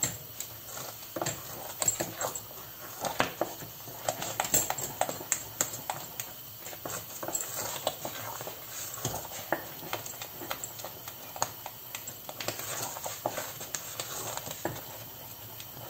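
Wooden spoon beating and scraping a thick croquette béchamel in a stainless steel pan, with irregular, rapid knocks and clicks of the spoon against the pan. The sauce has been worked until it is stiff and almost done.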